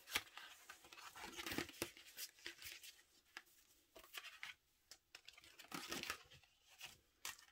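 Paper and plastic packaging rustling and crinkling as an envelope is handled and opened, in a run of irregular crackles with a short lull a little past the middle.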